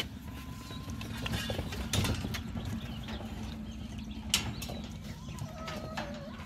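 Metal clicks and clanks of a pipe-frame kennel gate and its latch being handled, with scattered knocks, two of them sharper about 2 and 4.4 seconds in, over a steady low hum. Dogs are eating from stainless steel bowls.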